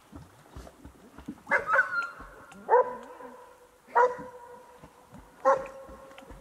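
Labrador retriever barking about five times, roughly a second apart. Each bark starts sharply and trails into a held, ringing note.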